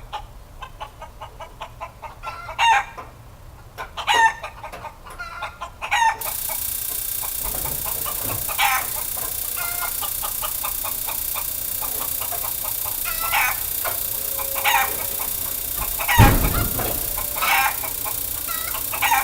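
Chickens clucking and calling again and again in short calls. About six seconds in a steady hiss starts and keeps going, and a loud low thump comes about sixteen seconds in.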